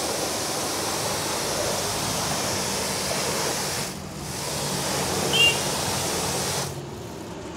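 Electric high-pressure washer spraying a jet of water to rinse foam off a motorbike: a steady spray hiss that breaks off briefly about four seconds in, resumes, and falls away near the end.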